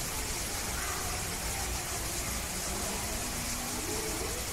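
Steady background hiss and rumble, with faint distant voices of people talking now and then.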